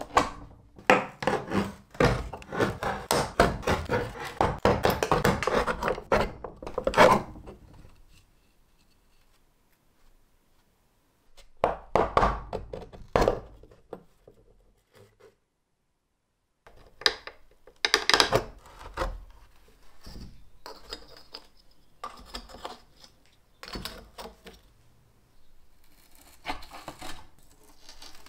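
Old nails and wire pins being worked loose and pulled out of a wooden pinball playfield by hand: a busy run of clicks, knocks and scrapes of metal on wood, broken by two spells of near silence in the middle. Near the end a screwdriver scrapes as it pries at the edge of the board.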